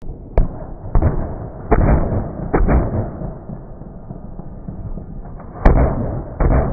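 Muffled gunshots on a firing range: single shots and quick pairs at uneven intervals, over a steady rumble, with the loudest shot near the end.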